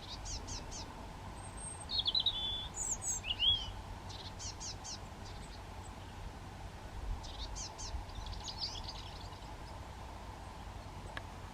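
Small songbirds chirping and singing in short, high twittering phrases, one every second or two, over faint outdoor background noise.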